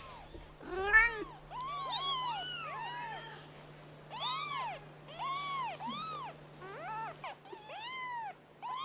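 Young Siamese kittens mewing over and over in thin, high calls that each rise and fall in pitch, sometimes two at once.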